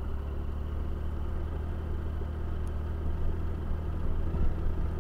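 Triumph Tiger 1050 motorcycle's three-cylinder engine running with a steady low note.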